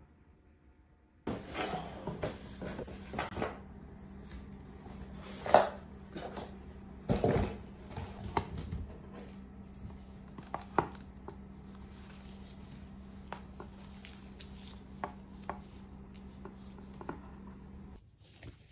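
Handling of an opened cardboard gift box and the neoprene posture-correction belt inside it: irregular rustling, light knocks and sharp clicks, the loudest a knock about five seconds in and a cluster about seven seconds in, over a steady low hum. It starts after about a second of near silence and cuts off abruptly near the end.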